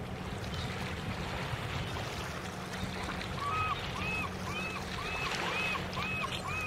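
A steady low drone of a distant vessel's engine over the water, and from about halfway through a bird calling over and over, about two short rising-and-falling notes a second.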